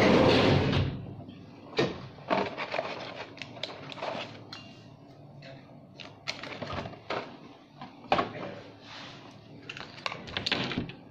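A loud rustle in the first second, then scattered sharp clicks, snaps and short crackles as medicine blister packs and tablets are handled and cut.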